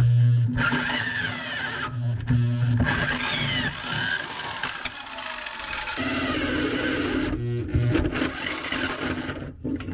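Electric drill running a hole saw through a wooden floor. The motor hum swells and eases several times as the saw bites into the wood.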